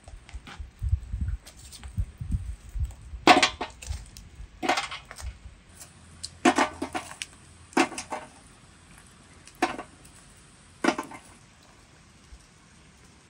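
A small metal shovel scooping wood embers from the fire and tipping them onto a metal tray lid over a pan, heaping coals on top to bake from above: about six scrapes and clatters of charcoal on metal, a second or two apart, with a few low dull knocks in the first seconds.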